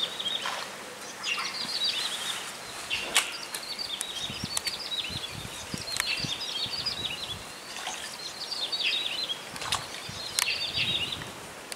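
A bird singing short, chirpy twittering phrases, repeated every second or two, with a few sharp clicks in between.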